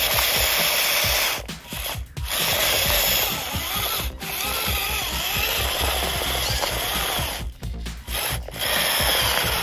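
Small DC electric motor and gearbox of an RC model Swaraj tractor running under load as it drags heavy blocks, a steady mechanical whir that stops and restarts a few times.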